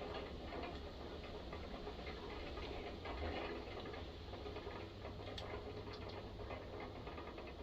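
Faint, irregular ticking and clicking of small metal tools and parts being handled during hand work on a chainsaw cylinder, over a steady low hum.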